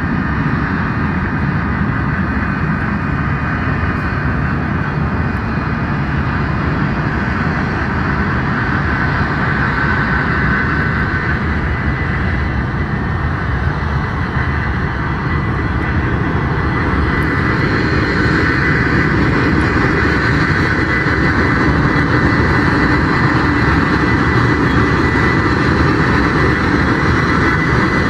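Boeing 727-200's three Pratt & Whitney JT8D turbofans at taxi power: a steady jet rumble with a high whine, growing a little louder in the second half.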